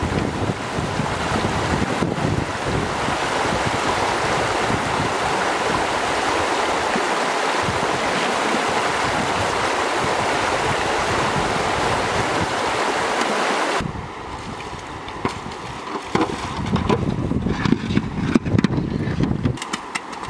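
Shallow river water rushing over stones, a steady loud rush that cuts off abruptly about fourteen seconds in. After that, wind buffets the microphone, with scattered light clicks and knocks.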